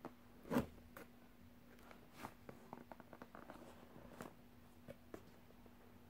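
Cardboard box handled and turned over in the hands: a bump about half a second in, then a run of light scrapes and taps of fingers on cardboard.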